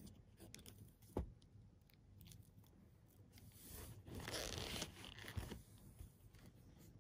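Mechanical pencil scratching faintly on drawing paper, with a sharp tap about a second in and a louder rasping scrape lasting about a second around four seconds in.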